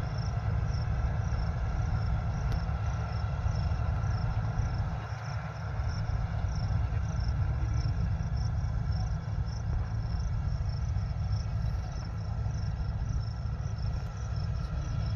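Combine harvester running steadily, with a strong low engine rumble and a high chirp repeating about twice a second.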